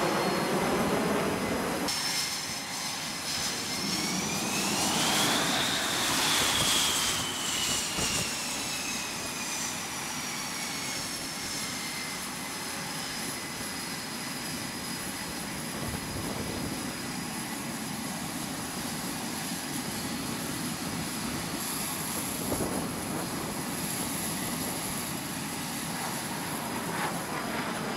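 F/A-18 Super Hornet twin turbofan jet engines running, a high whine over a steady rush. The whine climbs about five seconds in and then slowly falls away, and a steadier whine and rumble follow.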